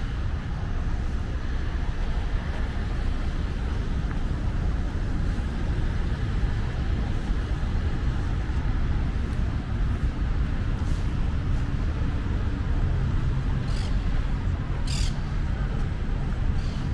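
Steady rumble of city road traffic, cars and buses moving past, with a few short high squeaks in the second half.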